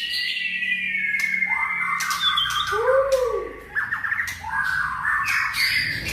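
White-rumped shama singing a varied song: a long falling whistle, then low arched notes and fast buzzy rattles.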